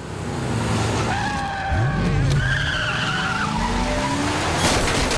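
BMW 7 Series V8 revving hard, its pitch climbing twice, while the tyres squeal and skid. A burst of harsh noise comes near the end.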